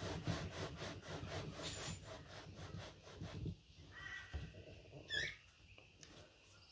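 Wooden frame of a bee box level rubbing and scraping on a flat board as hands press and rock it to check it sits flat, in a run of quick scratchy strokes that die down after about three and a half seconds. A brief high chirp sounds about five seconds in.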